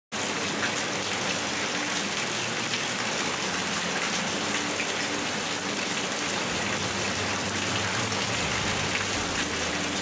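Heavy typhoon rain falling steadily, a dense, even hiss.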